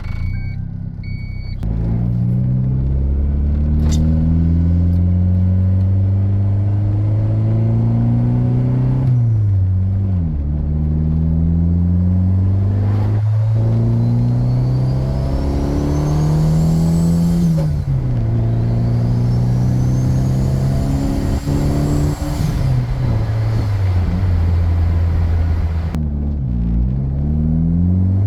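Turbocharged Honda engine pulling hard through the gears: its pitch climbs and drops back at each gear change, about every four seconds, with a faint turbo whistle rising during two of the pulls. An electronic chime beeps a few times at the start. The car is running after its faulty main relay was replaced, which the owner takes for the cause of the no-start.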